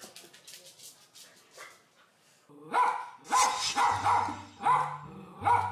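A miniature pinscher barking sharply and repeatedly, a bark about every half to three-quarter second, starting about halfway in after some faint clicking. Alarm barking at the household's grandfather, whom the owner thinks the dog treats as an outsider.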